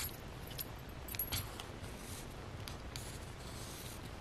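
Quiet handling sounds at a craft table: paper and twine rustling, with a few scattered light clicks and clinks.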